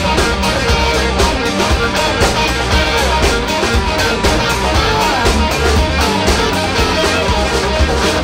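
Live blues-rock band playing: electric guitars over drums and bass guitar, with a steady beat.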